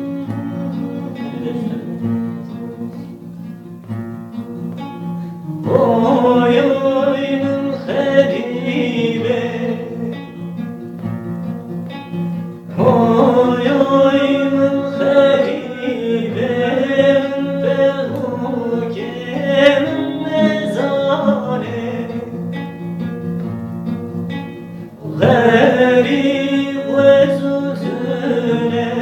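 A song: plucked-string accompaniment plays alone at first, then a male singer comes in about six seconds in and sings in long phrases over it, with breaks between the phrases.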